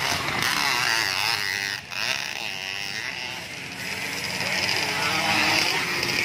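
Dirt-bike race engines revving hard, their pitch rising and falling as the bikes accelerate past, with a brief break about two seconds in.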